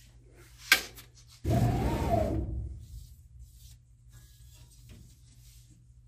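A sharp click, then the laser cutter's gantry pushed by hand along its rails: a sliding, rolling rumble of about a second and a half that starts suddenly and fades out. Afterwards, faint brushing of a foam paintbrush along the oiled rail.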